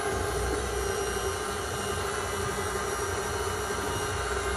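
KitchenAid Artisan tilt-head stand mixer running steadily on low speed, its dough hook turning dry flour in the steel bowl: an even motor hum with a constant whine.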